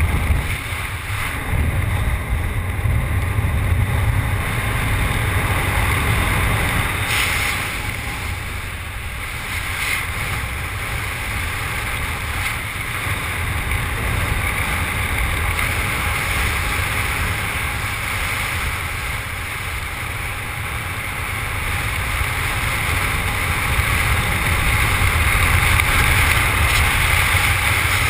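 Wind rushing over a camera microphone under an open parachute canopy in flight: a steady, rumbling noise that swells and eases slowly.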